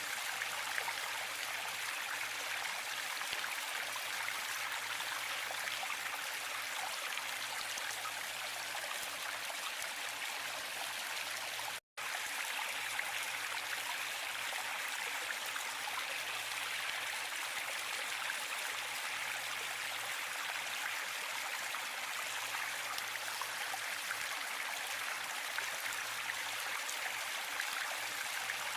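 Waterfall water rushing and splashing in a steady, even wash. A split-second cut to silence about twelve seconds in.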